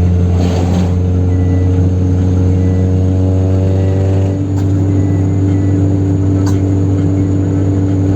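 Chevrolet Kadett 1.8 engine pulling hard at high speed with a steady, loud drone. The level dips briefly about four and a half seconds in, and the pitch then creeps up slightly.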